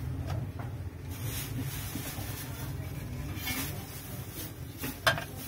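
Soft rustles and light clicks as chopped onion is sprinkled onto a paper bowl of chaat and a plastic spoon is set in it, over a steady low hum. One sharp click near the end.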